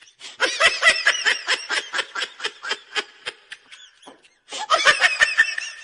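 A person laughing hard in rapid, high-pitched bursts, with a brief pause near the end before one more burst of laughter.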